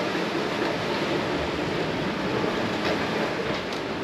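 Steady rushing noise of wind and water on a sailing catamaran under way at around 7 knots, the water streaming past the hulls.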